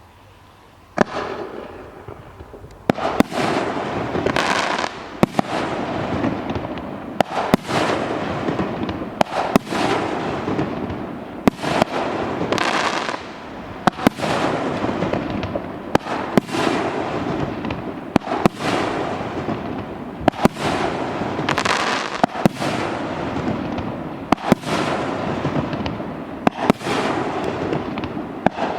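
2.5-inch fireworks cake firing its shots in succession: each a sharp bang followed by a fading crackle, repeating roughly once a second after a first shot about a second in.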